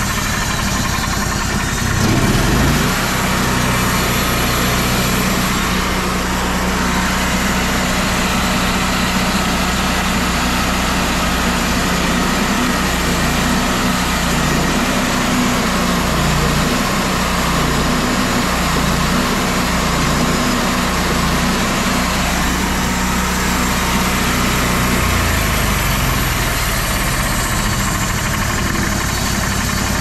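Hydraulic portable sawmill's engine running steadily. Its note picks up about two seconds in and shifts up and down as the hydraulics drive the movable guide arm in and out. A low part of the hum drops away about 25 seconds in.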